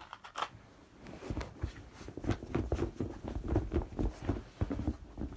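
Irregular soft knocks and rustles of small objects being handled, as squishy toys are rummaged through and picked out of a bucket.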